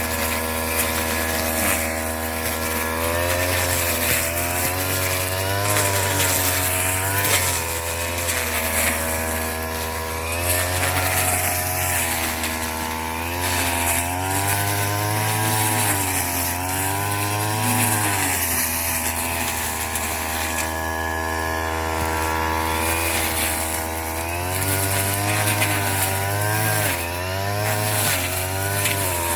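Small engine of a straw-cutting machine running hard, its pitch rising and dipping over and over as the revs change while it cuts rice straw.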